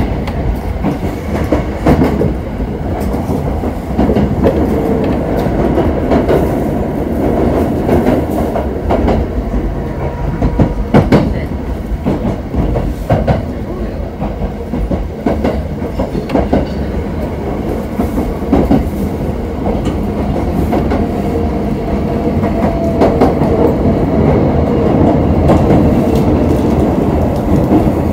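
JR Kobe Line train running, heard from inside the passenger car: a steady rumble with irregular clicks from the wheels on the track.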